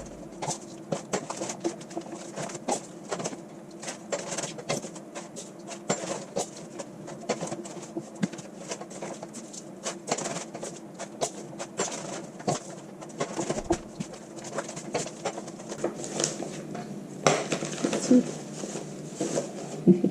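Pet budgies chattering and chirping, over the light clicks and rustles of chopped vegetable bird chop being spooned into plastic bags.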